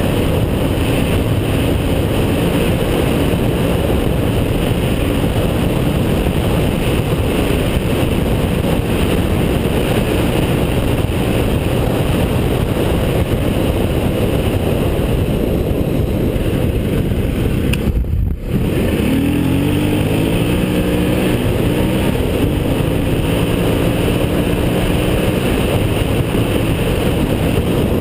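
Enduro motorcycle engine running hard at speed on a dirt track, under heavy wind rush on the helmet-camera microphone. About two-thirds of the way through the sound briefly cuts out, and after that the engine's pitch rises and falls with the throttle.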